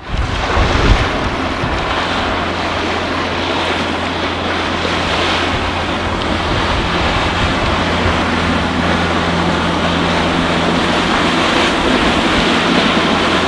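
Wind buffeting the microphone over open water, with a steady low boat-engine drone underneath.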